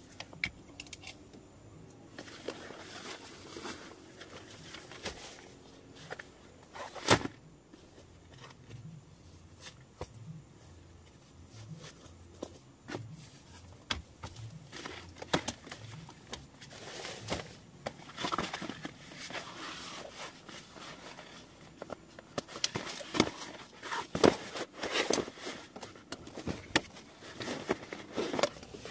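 Rustling and scattered knocks as a backpack and a rolled foam sleeping mat are handled and set down on a split-bamboo floor, with one sharp knock about seven seconds in and a busier run of knocks and rustles near the end as the mat is unrolled.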